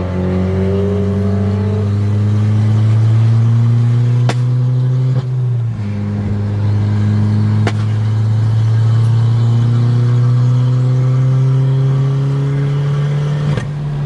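Tuned Audi S3's turbocharged four-cylinder engine heard from inside the cabin, pulling under load with its pitch slowly rising as the car accelerates. The engine note breaks off and restarts lower about five seconds in and again near the end, and a few sharp clicks sound over it.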